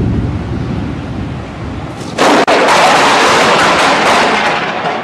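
Thunder from a nearby lightning strike: a low rumble, then about two seconds in a sudden, very loud blast that fades away over the next two seconds.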